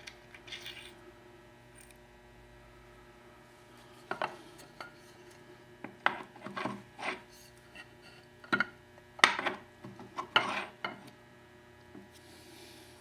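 Metal parts of a Lie-Nielsen chain drive vise being handled and fitted back together: scattered short clicks, knocks and brief scrapes, mostly after the first few seconds, with quiet stretches between.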